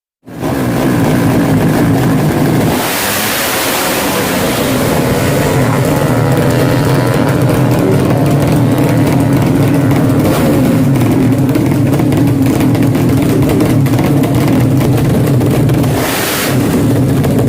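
Drag-racing engines running loud and revving, their pitch rising and falling, with a brief dip in level about sixteen seconds in.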